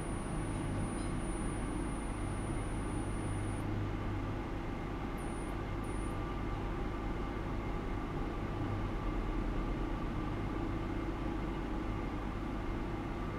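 Steady low hum and hiss of running lab electronics, with a faint high whine that stops about three and a half seconds in and comes back twice briefly.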